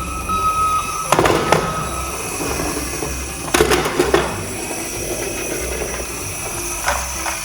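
Small plastic toy cars clattering and knocking as they run down a slope track, in two quick bursts of impacts about a second in and about three and a half seconds in, with a lighter knock near the end, over background music.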